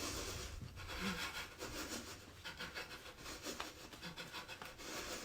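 Quiet, irregular rasping of deep breaths mixed with the rubbing and rustling of clothes during a qigong breathing-and-shaking exercise.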